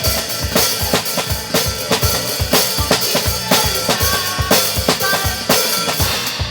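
Drum kit played along with a recorded gospel worship song: a steady beat of bass drum and snare under cymbals, with the song's instruments in the mix.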